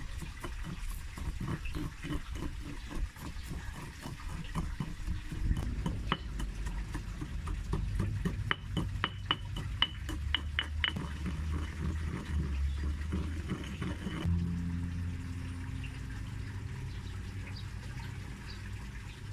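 Stone pestle pounding and grinding dry rice grains in a stone mortar: repeated knocks of stone on stone with gritty crunching as the rice breaks into powder. About two-thirds of the way in the knocking stops and a steadier, softer sound follows.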